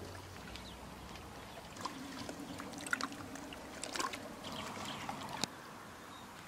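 Lake water lapping quietly against shore stones, a faint trickle with scattered small splashes and drips.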